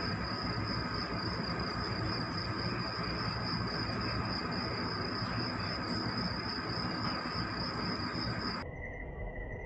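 Steady background drone of a ship's deck with a continuous high, pulsing trill over it. Near the end it cuts off abruptly to a quieter sound carrying a steady mid-pitched tone.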